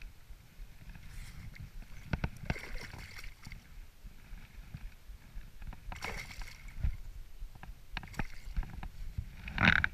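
Water splashing and sloshing close by as a hooked pike thrashes at the surface beside a float tube. Irregular knocks run through it, with splashes about two and six seconds in and the loudest splash just before the end.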